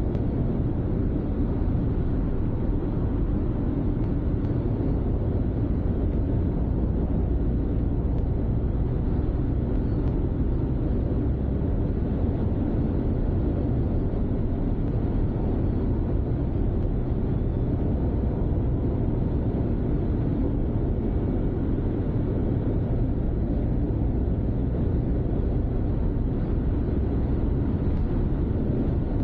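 Steady low rumble of tyre and engine noise from a car driving along, heard from inside the cabin.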